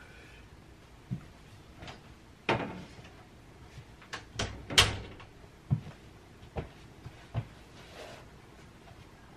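A door being handled and shut, with a sharp latch click just before halfway, in a tight run of clicks. Around it, a string of separate lighter knocks and thuds from moving about a closet on a wood floor.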